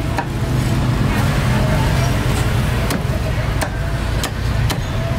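Cleaver chopping roast duck on a thick round chopping block: a few sharp chops in the second half, over a steady low rumble of street traffic.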